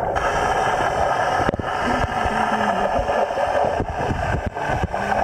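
Underwater sound of a swimming pool picked up by a submerged camera: a steady rushing noise with many small clicks and crackles of bubbles as a Doberman pinscher dives and paddles in the water.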